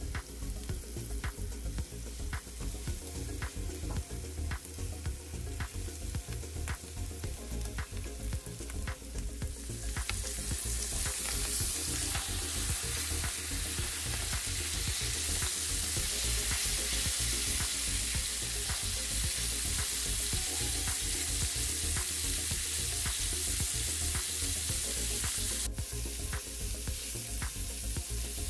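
Bone-in ribeye steaks frying in butter in a Presto Foldaway electric skillet, with popping and crackling. About ten seconds in the sizzle turns into a louder, steady hiss for roughly fifteen seconds, then drops back to crackling near the end.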